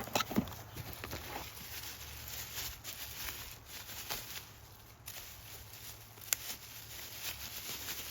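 Faint handling noise of small parts: soft rustling with a few light clicks near the start and a sharper click about six seconds in.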